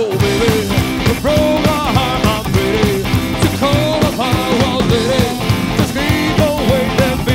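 Live rockabilly rhythm-and-blues band playing an instrumental passage: drums and upright double bass keep a steady driving beat under a lead line that bends and wavers in pitch.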